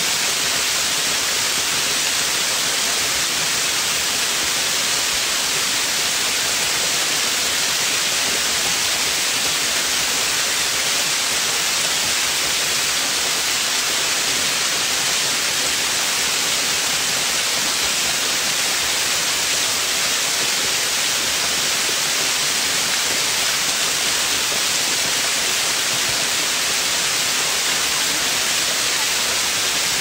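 Waterfall pouring down a rock face into a pool, a steady, loud rush of falling water that does not change.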